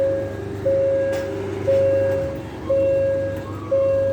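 Railway level-crossing warning bell ringing, one steady-pitched ring about every second, each ring starting sharply and fading, over a low steady rumble: the signal that a train is approaching.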